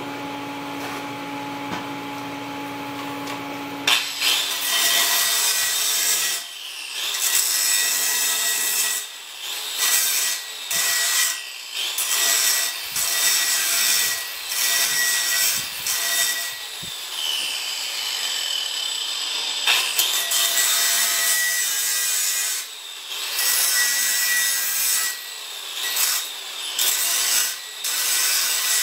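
Angle grinder grinding on a carbon steel pipe, throwing sparks, in repeated passes of a second or two with brief dips between. A steady machine hum comes first, and the grinding starts about four seconds in.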